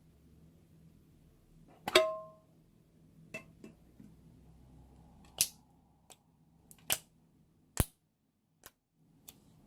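A series of sharp pops and clicks from slime and its plastic containers being handled, about nine in all at uneven spacing. The loudest comes about two seconds in and carries a brief ringing tone.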